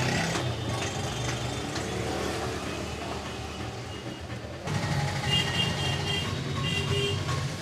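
Street traffic: vehicle engines running steadily. About two-thirds of the way in the sound changes abruptly, and after that short high tones sound twice.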